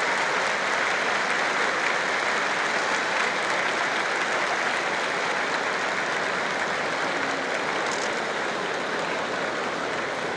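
A large arena crowd applauding steadily, the clapping slowly dying down toward the end.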